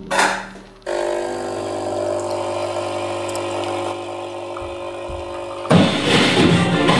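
A thump at the very start, then a steady hum of several held tones that starts abruptly about a second in and cuts off near the end, where guitar rock music comes in.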